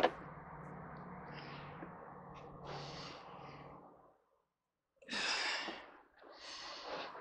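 A man breathing out heavily twice in frustrated sighs, after a sharp knock and a few seconds of steady low hum.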